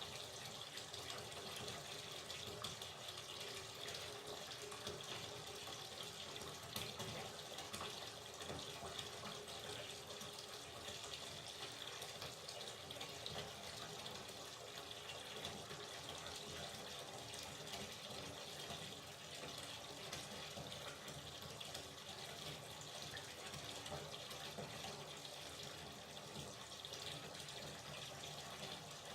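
Hot water running steadily from a tap into a bathtub as it fills, a continuous splashing rush.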